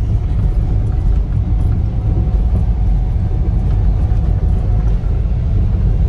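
Steady low rumble of a car driving on a wet road, heard from inside the cabin.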